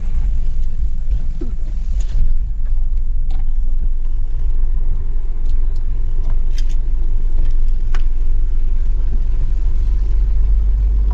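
Steady low rumble of a vehicle being driven, heard from inside the cab: engine and road noise, with a few light clicks and knocks scattered through it.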